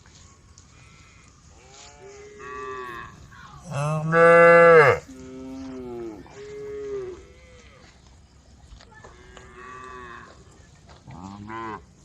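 Cows mooing: a string of separate calls of differing pitch from several animals, the loudest a long low moo just after four seconds in.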